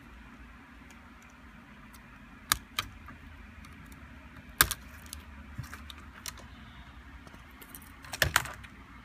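Hard plastic and metal laptop parts clicking and tapping as they are handled with a small screwdriver during disassembly. There are two clicks about two and a half seconds in, a sharper one near the middle, and a quick cluster near the end, over a faint steady hum.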